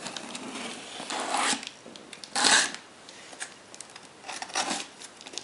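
Packing tape on a cardboard box being slit open with a small blade: three swishing, tearing strokes along the seam, the loudest about halfway through, with light clicks and scrapes of cardboard between them.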